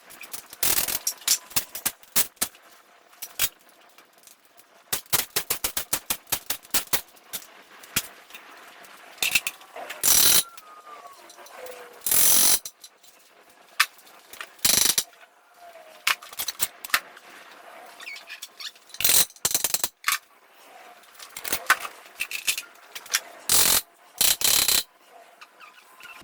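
Ratchet wrench clicking in quick runs while bolts are backed out of an engine being torn down, with several short, loud bursts of harsher noise and tools clinking between them.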